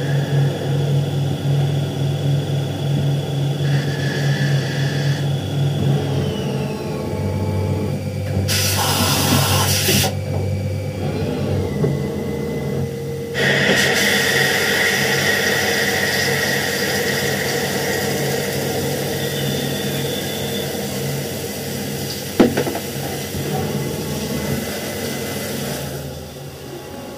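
Mazak CNC lathe turning a bar stock part: the spindle and machine run with a steady hum and a high whine that falls in pitch about six seconds in. Flood coolant spraying over the spinning part and tooling adds a loud hiss, briefly near nine seconds and then steadily from about thirteen seconds on, with one sharp click near the end.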